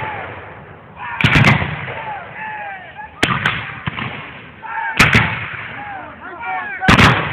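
Black-powder weapons firing blank charges: sharp shots about every one to two seconds, several coming in quick pairs, each followed by a short echo.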